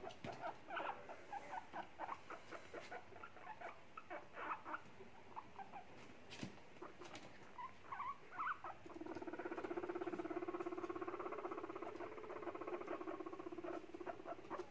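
Abyssinian guinea pigs making short squeaks and clicks, then about nine seconds in one starts a steady, rapidly pulsing purr-like rumble, the loudest sound here, which stops just before the end.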